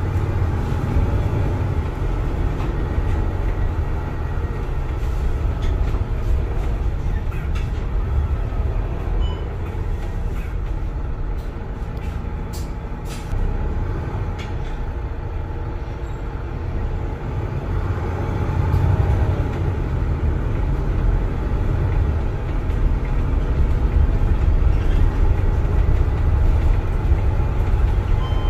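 Cabin noise inside a moving MAN NL323F city bus: a steady low engine and road rumble that eases off slightly about halfway through and grows louder again in the last ten seconds, with a few light rattles and clicks around the middle.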